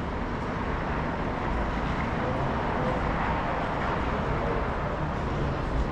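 Steady background noise of distant road traffic, an even rumble and hiss with no single event standing out.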